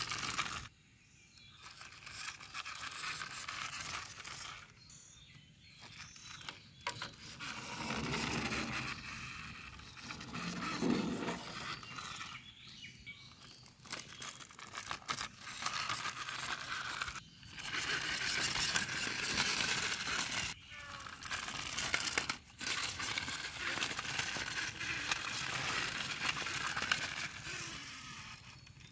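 Plastic wheels of a toy dirt bike rolling and scraping over rough brick and stone as it is pushed by hand, in spurts of gritty noise with short pauses between them.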